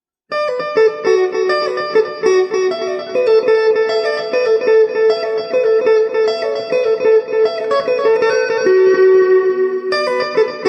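Electric guitar played through a Zoom G3X multi-effects pedal on a chicha-style patch (compressor, graphic EQ, noise gate, delay and hall reverb), picking a melody of quick single notes. It starts suddenly about a third of a second in.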